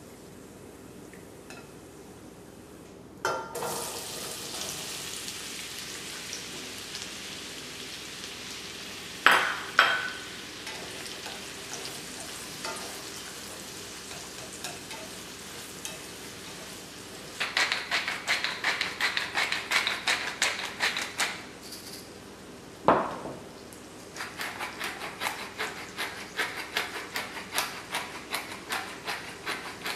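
Diced onions sizzling steadily in hot bacon fat in a stainless steel sauté pan; the sizzle starts suddenly a few seconds in. There are a few loud clanks of a utensil on the pan, then long runs of rapid scraping strokes as the onions are stirred.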